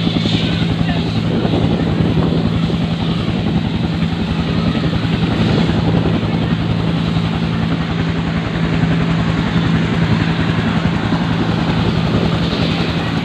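Helicopter running steadily: a rapid rotor beat over a constant engine hum, loud throughout.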